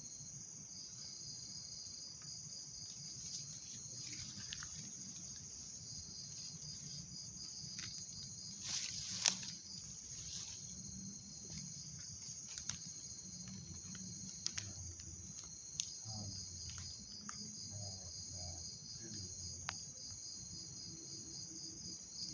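Steady chorus of night insects chirping in a fast pulsing trill, with a few scattered clicks and one brief louder rustle about nine seconds in.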